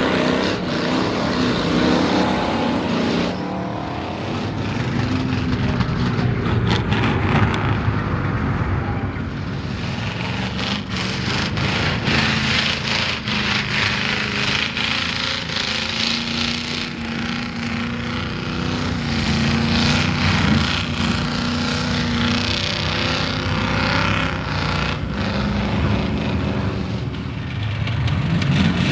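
Lifted mud trucks on big mud tyres driving through a mud bog, one after another, their engines revving up and down and tyres churning through the mud. There is a rising rev near the end.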